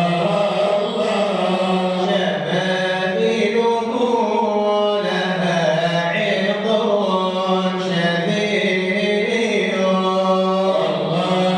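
Male voice chanting an Arabic devotional praise poem (madih) unaccompanied, in long held notes that slide melodically from one pitch to the next.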